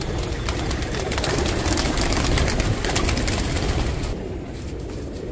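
A flock of black Menadaag pigeons cooing, with a stretch of rustling noise through the middle, loudest about two seconds in.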